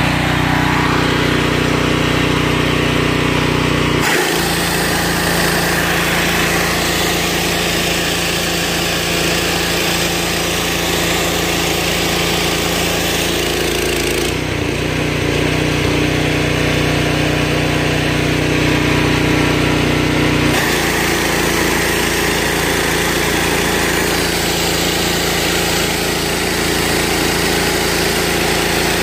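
DuroMax gasoline engine running steadily at speed, driving a 4,000 psi, 4 gpm pressure-washer pump under load through a test-stand nozzle, with water hissing from the spray. The sound shifts abruptly about 4, 14 and 20 seconds in.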